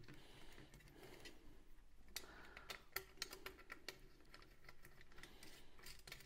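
Faint, irregular light clicks and taps of M6 bolts and washers being handled and fitted by hand into an aluminium compressor mounting bracket.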